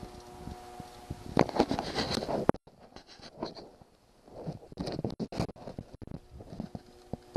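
Old ProForm treadmill running with a steady motor hum and whine, then a couple of seconds of loud rough rattling and scraping. The sound cuts off abruptly, leaving scattered clicks and knocks. The treadmill is making an unwanted noise, which the owner traces along the machine to the middle.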